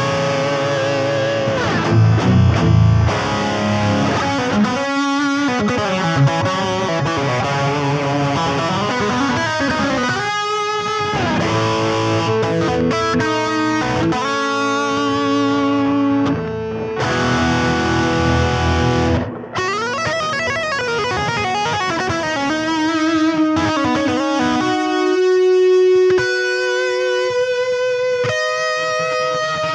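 Electric guitar played through an Electro-Harmonix Freeze sound retainer pedal: lead lines with string bends over held chords that ring on. Over the last few seconds the texture thins to single held notes.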